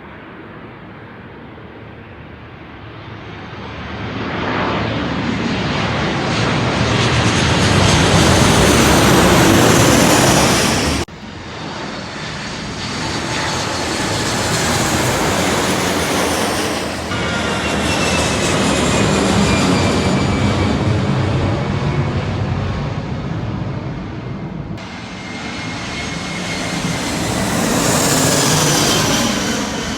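Airplanes passing low overhead, one after another: each engine roar swells and fades with a falling whine. Abrupt cuts join several separate passes.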